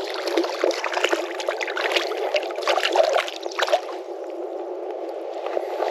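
Creek water running steadily, with a run of sharp irregular splashes and clicks over the first four seconds before it settles.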